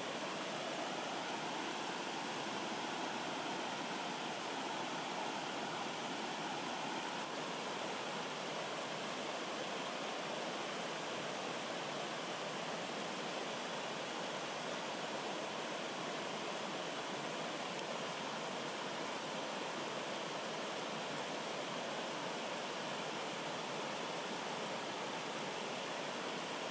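Rocky stream flowing over small cascades and boulders: a steady, even rush of water with no breaks.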